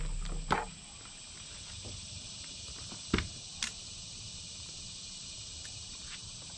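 A few sharp clicks and taps as a clamp meter and its test leads are handled and switched to the ohms range, over a steady high hiss.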